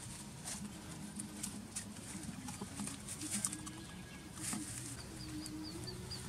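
Scattered clicks and rustles from raw duck being handled in a steel bowl and worked onto a bamboo skewer, over a low steady hum. Near the end a bird calls in a quick series of about seven short high chirps.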